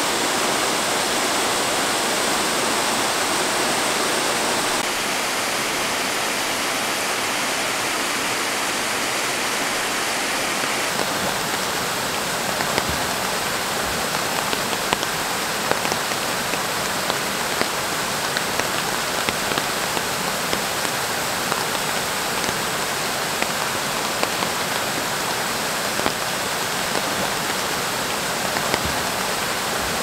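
Rain falling on a creek pool: a steady hiss of rain and running water, with individual drops clicking on the water surface more distinctly from about twelve seconds in.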